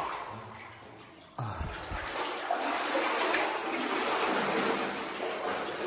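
Shallow water splashing and trickling on a cave floor. It starts abruptly about a second and a half in, after a quieter, fading hiss, and then runs on steadily.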